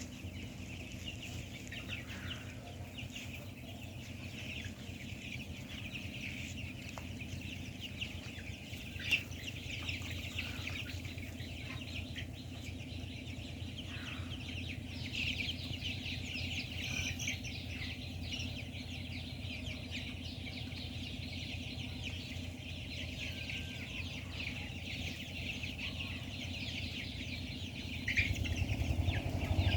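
A flock of 20-day-old Kuroiler chicks cheeping and clucking continuously, many small high calls at once, over a steady low hum. A louder low rumble comes in near the end.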